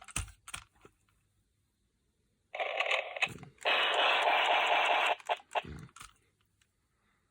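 Electronic sound effect from the toy quick-draw game's small speaker: a short burst of static-like noise about two and a half seconds in, then a louder, steady burst of the same noise lasting about a second and a half.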